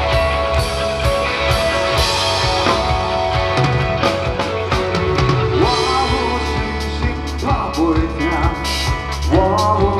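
Live rock band playing: drums and bass guitar under a pitched lead line that bends up and down in the second half.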